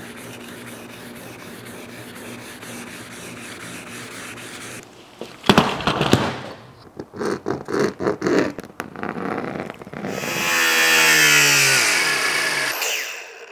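Wet sandpaper rubbing on a painted body panel for about five seconds. Then a sharp knock and a run of irregular clatters and scrapes. Near the end a cordless Milwaukee Fuel angle grinder runs briefly and winds down, its pitch falling.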